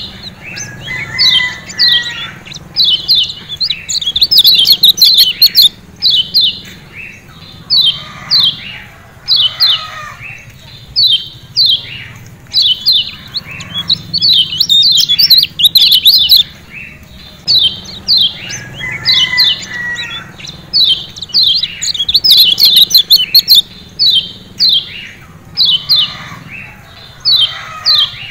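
Lombok yellow white-eye (kecial kuning) giving its 'ciak ciak' chip calls: short, sharp, falling notes in quick runs of several at a time, repeated again and again.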